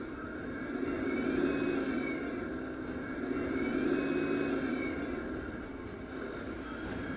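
Simulated tank engine sound from the Tamiya KV-2 1/16 RC tank's onboard sound unit, played through its built-in speaker. It runs steadily, swelling and easing in level a few times.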